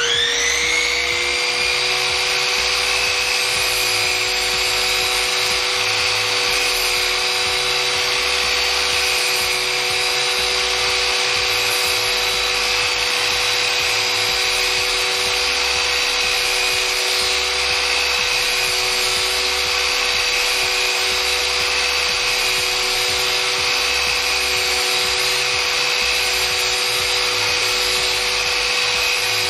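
Sliding compound mitre saw's 2000 W belt-driven motor starting and winding up in pitch, then running steadily with a constant whine while the blade trims a half-lap joint in timber.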